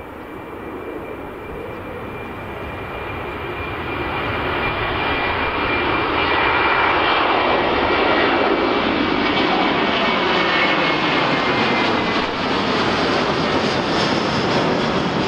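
Airliner's engines as it flies past: the noise swells over the first six seconds and then stays loud, with a high whine sinking slowly in pitch.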